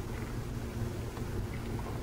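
Steady low outdoor rumble with wind on the microphone, and a few faint short high chirps.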